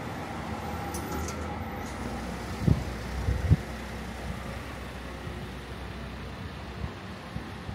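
Street traffic: a motor vehicle running and passing with a steady low rumble, and two short low thumps about three seconds in.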